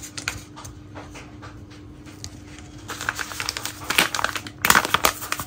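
Rustling, crinkling and clicking of kitchen handling over a bowl of minced meat, with louder clusters about four and five seconds in, over a steady hum.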